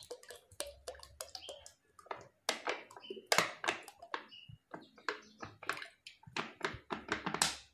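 Liquid detergent glugging and splashing out of an upturned plastic bottle into a bucket of used cooking oil, in a quick, irregular run of gurgles and splashes.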